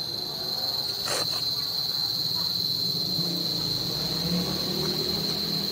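Steady high-pitched insect trill, unbroken, with a brief scrape of a small trowel on wet cement about a second in.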